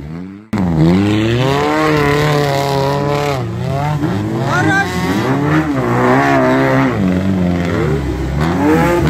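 Lada Niva's engine revving as the car churns through deep mud, its pitch rising and falling again and again.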